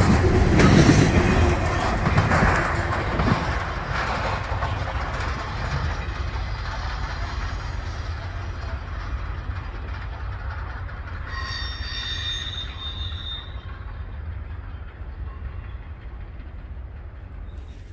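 Norfolk Southern intermodal freight train's cars passing on the rails, fading steadily as the end of the train moves away. A brief high squeal sounds about twelve seconds in.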